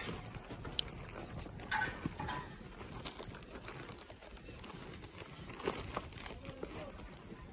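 Grocery bags rustling as they are carried, with light footsteps on a concrete walkway.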